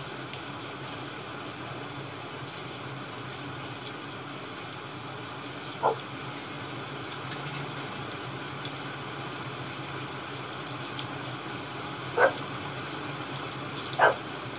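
Crackling firewood ambience: a steady hiss with scattered small crackles and a few louder pops, about six, twelve and fourteen seconds in.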